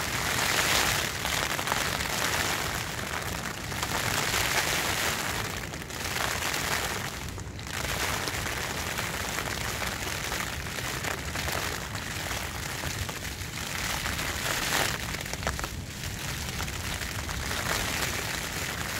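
Wind and rain beating on a small Vango tent's fabric, heard from inside the tent: a dense, steady patter that swells and eases every few seconds.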